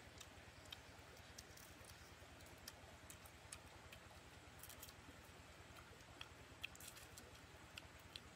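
Faint, scattered small clicks and crackles at irregular intervals over a steady low hum: a person eating grilled shrimp, chewing and handling the crisp shells.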